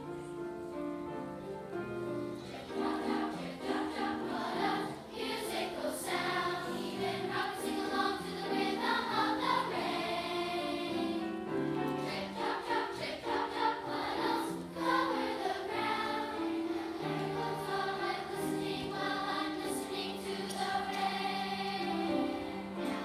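A large mixed choir of children and adults singing, holding and changing sustained notes.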